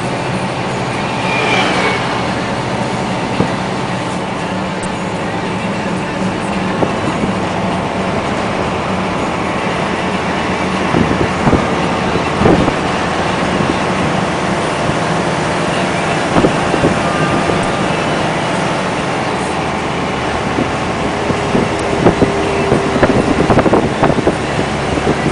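Heavy dump truck's diesel engine running steadily, with scattered knocks and clanks.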